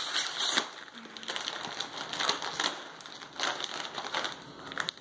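Lay's Poppables sea salt potato chips crunching as they are chewed, a run of irregular crisp crunches.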